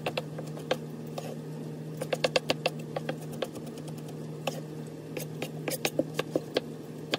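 Chef's knife chopping green pepper on a plastic cutting board: quick, irregular taps of the blade on the board in clusters, over a steady low hum.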